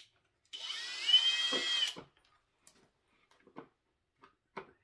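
Cordless drill with a 1/8-inch bit boring through the plastic housing of a spin art toy: one burst of about a second and a half, its motor whine rising, holding, then falling away. A few faint clicks follow.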